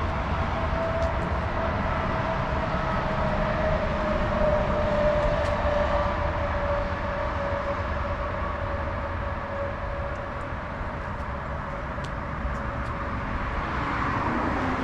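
Steady vehicle running noise: a continuous low rumble with a steady whine that slowly drops in pitch.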